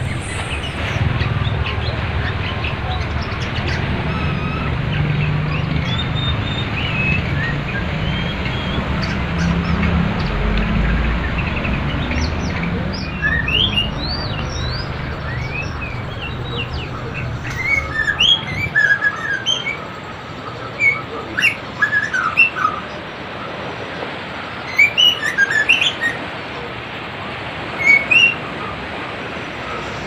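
Rushing river water hissing steadily, with a songbird's short chirps and whistles over it, scattered at first and coming thick and loud in the second half.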